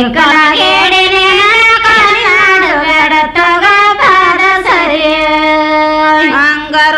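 A woman singing a Kannada folk wedding song (sobane pada) in a high voice, drawing out long notes that glide and bend in pitch, with a brief break about six seconds in.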